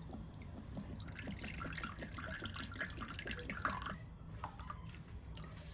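Clear liquid poured in a thin stream from a bottle into a small ceramic bowl, trickling and splashing. The pouring thins out near the end.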